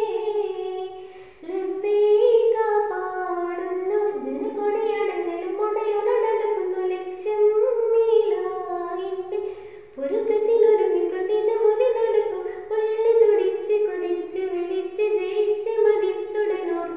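A girl singing solo, one melodic voice with short breaks about a second and a half in and again near ten seconds in.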